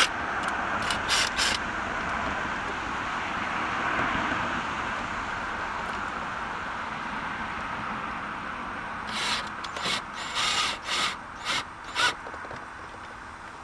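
A steady rushing noise that swells and then slowly fades, with a cluster of sharp clicks and knocks from work on electrical conduit and an outlet box about nine to twelve seconds in.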